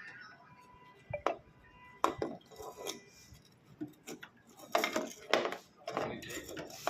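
Scattered clinks and knocks of hard objects being handled. They come a few at a time at first, then turn into a busier clatter in the second half.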